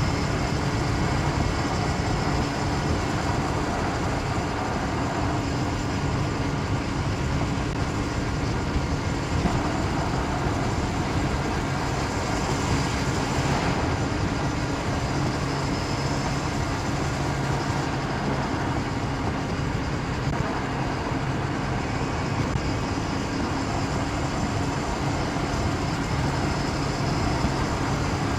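Steady vehicle engine and road noise at a constant pace, with a low hum under a dense rush.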